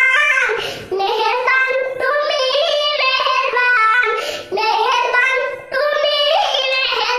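A young boy singing a Bengali Islamic gazal in a high voice, in sung phrases broken by short breaths about a second in and twice more in the second half.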